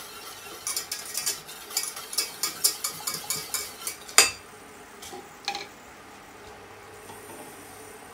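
Wire whisk beating inside a stainless steel saucepan as a fruit coulis heats, with quick metallic clinks about five or six a second for a few seconds. Then one loud sharp clink about four seconds in and a softer one a second later, after which the whisking stops.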